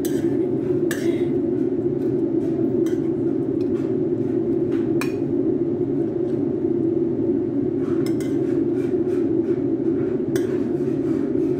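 Metal ladle scraping and clinking against a white wok and bowl as stir-fried broccoli and mushrooms are scooped out, a scattered series of knocks with the sharpest about five seconds in. A steady low hum runs underneath.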